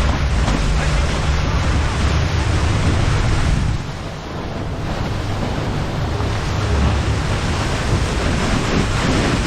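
Wind buffeting the microphone and water rushing past a motorboat under way, a dense steady rush with a brief lull about four seconds in.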